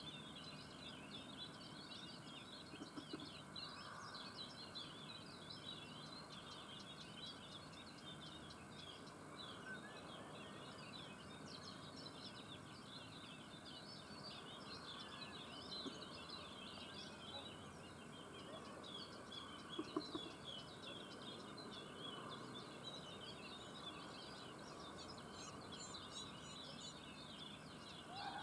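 Faint, continuous chorus of many small birds chirping, with a couple of short knocks, the louder one about two-thirds of the way through.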